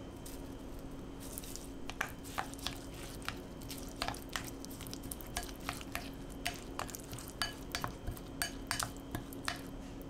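Spatula stirring a thick garlic butter spread in a glass bowl: irregular light clicks and taps of the spatula against the glass, starting about a second and a half in.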